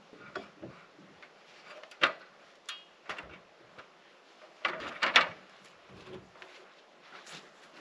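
Scattered knocks and clunks of log-building work, wood and tool striking wood. The loudest is a sharp knock about two seconds in, followed by a cluster of heavier thumps about five seconds in as a log is handled up a stepladder.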